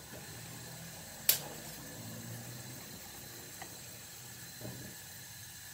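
Handling at the frying pan: a single sharp knock about a second in, over a faint steady low hum, with a couple of small ticks later.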